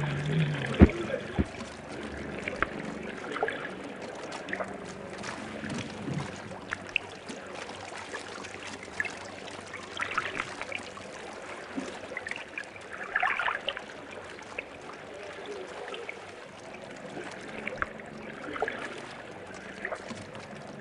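Sea water splashing and lapping around wooden fishing boats, with scattered knocks and clicks throughout, a sharp loud one about a second in.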